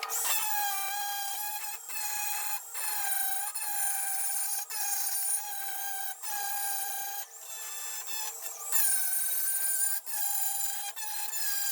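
Angle grinder grinding back fresh welds on a steel A-pillar: a high, steady whine whose pitch sags as the disc is pressed into the metal, broken by short pauses as it is lifted off and put back on.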